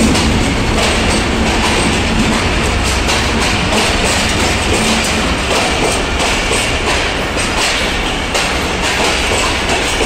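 Passenger coaches of an arriving express train rolling past at close range: a steady rumble of steel wheels on rail with a continual run of clicks as the wheels cross the rail joints. A low hum fades out in the first second.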